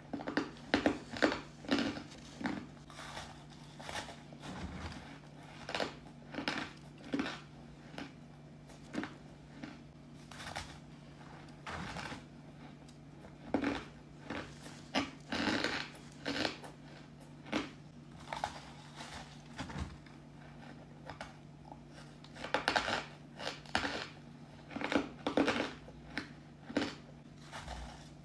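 A person biting and chewing crushed ice: runs of crisp crunches, several a second, in clusters with short pauses between.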